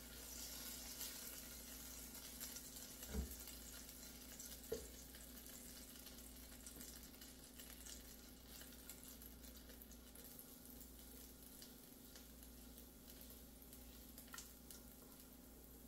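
Butter melting in a hot skillet with a faint sizzle and crackle, strongest in the first couple of seconds, over a steady low hum. Two light knocks come a few seconds in.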